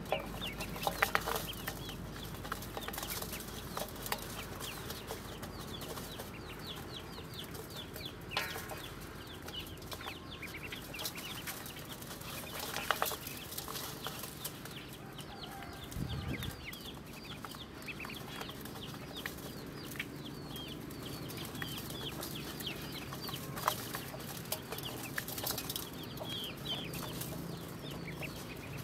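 A flock of ducklings peeping nonstop: many short, high calls overlapping. Now and then a brief splash or knock comes from the shallow metal basin of water they are paddling in.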